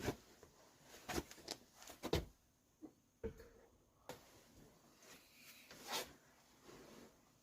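Faint, scattered clicks and knocks of dishes and utensils being handled, about half a dozen short taps spread across a few seconds in a small room.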